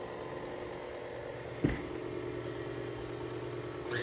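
Stand mixer motor running steadily on its lowest speed, the paddle beating softened compound butter to a peanut-butter consistency, with one sharp knock about a second and a half in. The hum grows louder and shifts in pitch just before the end.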